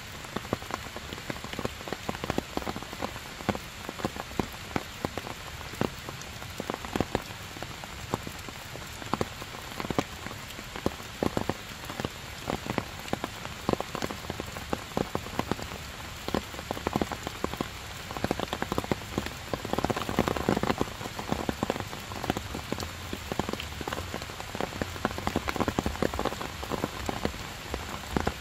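Heavy rain falling steadily, with many sharp ticks of drops striking close by. It swells louder for a couple of seconds about twenty seconds in.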